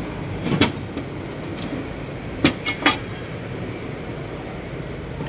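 Metal knocks from a Ford Everest 2.2 turbocharger being turned and pulled apart by hand on a workbench: one about half a second in, then three quick ones close together about two and a half seconds in, over a steady background rumble.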